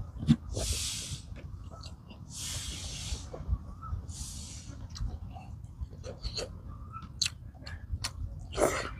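A man eating rice and straw mushrooms with his hands: chewing, lip smacks and mouth clicks, with about four noisy breaths through the nose. The last breath, near the end, is the loudest.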